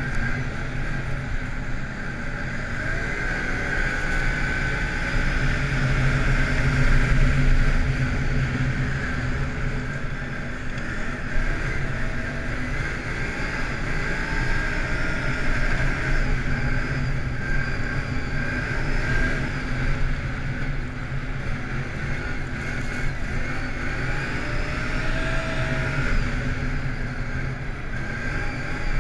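Can-Am ATV engine running steadily while riding along, its pitch rising and falling gently with the throttle, with some wind noise.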